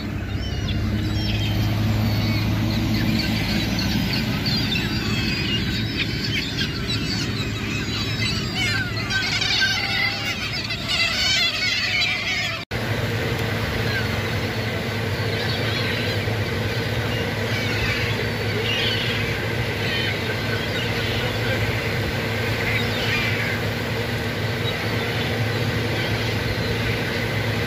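A flock of gulls calling with many short squealing cries, densest a little before the middle, over the steady hum of an idling vehicle engine.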